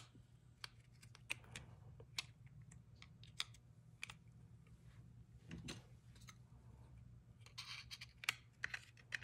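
Faint, scattered clicks and scrapes of plastic and metal as an M.2 SSD is seated in a tool-free clear plastic ORICO enclosure and its aluminium heatsink cover is pressed on. A couple of sharper clicks come near the end, over a low steady hum.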